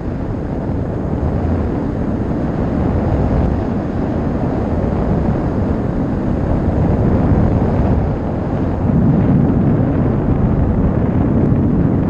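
Airflow in flight on a paraglider, blowing across the microphone of a pilot-mounted camera as a loud, low, steady wind rush that swells a little around the middle and again near the end.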